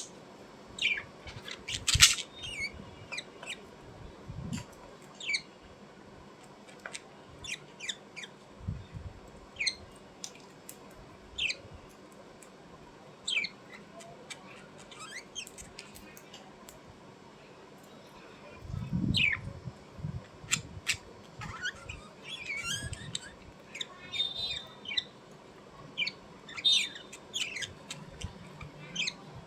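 A bird giving short, scattered chirps and squawks, many of them quick downward sweeps, with a few low thuds about two-thirds of the way in.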